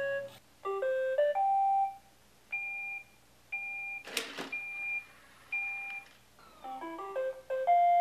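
iRobot Roomba 980 playing its electronic status tunes. A quick rising run of beeps is followed by four evenly spaced two-tone beeps about a second apart, and another short melody near the end. A brief noisy whoosh comes in the middle.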